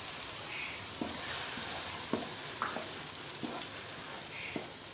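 Onion paste, just added to hot oil with cumin and ginger-garlic paste, frying in a non-stick pan with a steady sizzle. A spatula stirs it, scraping the pan about five times.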